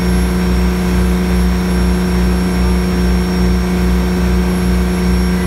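Boat engine running steadily under way: a constant drone with a slow low throb, over the rush of water from the wake.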